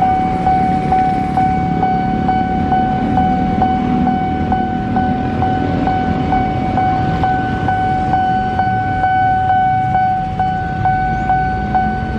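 Railway level-crossing warning bell playing from the loudspeaker on the signal post: one steady electronic ding repeated about twice a second. Low engine noise from motorcycles idling at the lowered barrier runs underneath.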